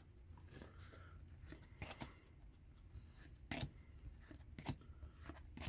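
Hockey trading cards being slid off a stack one at a time, giving faint, irregular papery flicks and rubs about once a second.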